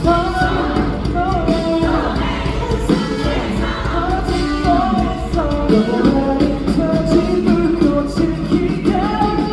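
Live rock band playing a song with sung vocals.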